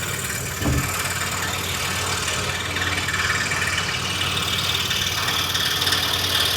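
Scroll saw running steadily while its blade cuts out a jigsaw puzzle piece: a constant motor hum with the hiss of the blade through the material, and one brief bump under a second in.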